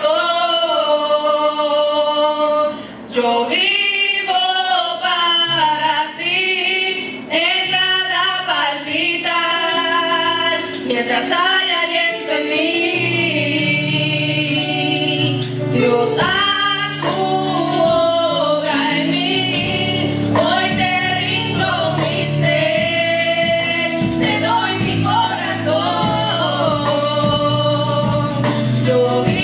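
A group of mostly female voices sings a Spanish-language worship song through microphones and a PA, in a gospel style. Low held backing notes come in under the voices about a third of the way through.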